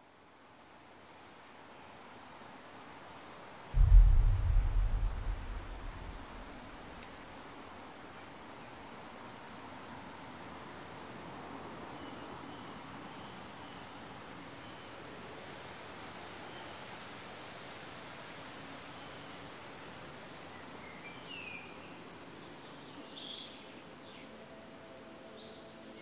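A steady, high-pitched insect chorus of crickets that fades in and runs on throughout. About four seconds in there is one loud, deep boom that dies away over about two seconds. A few short bird chirps come near the end.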